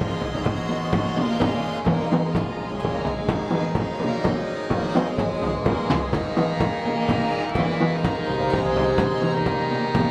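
Live band playing: accordion holding notes over acoustic guitar and a drum kit, with frequent drum and cymbal hits.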